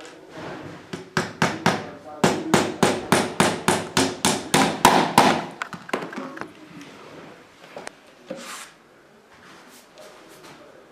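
A hammer striking repeatedly in a fast, even run of about twenty blows, roughly five a second, as parts of a flat-pack shoe cabinet are knocked together. A few lighter, scattered knocks follow.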